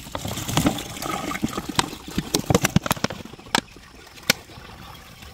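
Petrol glugging and splashing out of an upturned plastic bottle into a clear plastic tub. The glugging is loudest over the first three seconds, then eases to a quieter pour with a couple of sharp clicks.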